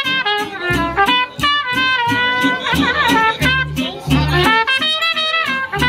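Small jazz band playing: a trumpet carries the melody over plucked double bass notes and a steady beat.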